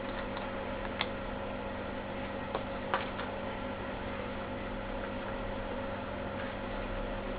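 A steady electrical hum over background noise, with a few short clicks about a second in and again around three seconds in.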